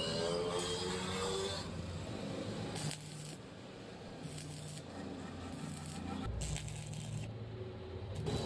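Metal clinking and scraping in many short knocks over a steady low hum, as metal pieces and tools are handled in a blacksmith's workshop.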